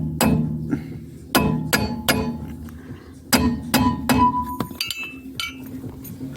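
Hammer blows ringing on a Lada Granta's steel rear brake drum, in three quick groups of about three strikes, then a few light clinks: tapping to free a drum that is stuck on the hub.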